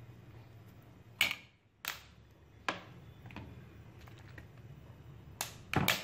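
A few sharp clicks and knocks over a low steady hum, the loudest about a second in and a pair near the end.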